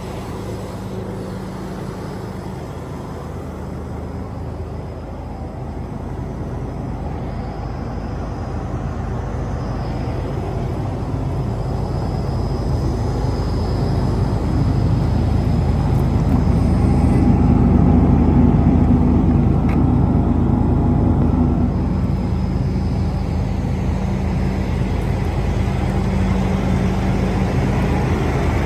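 Detroit Series 60 six-cylinder diesel of a Freightliner Columbia truck idling with a steady, low hum. The hum grows louder through the first half and eases a little near the end.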